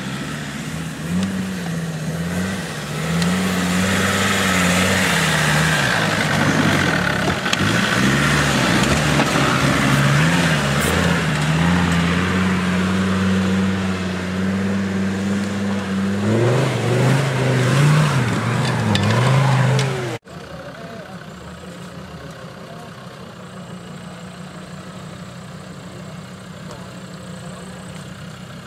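Land Rover Defender's engine revving up and down under load off-road, its pitch wavering, with loud noise over it. About twenty seconds in the sound cuts abruptly to a quieter, steady engine note.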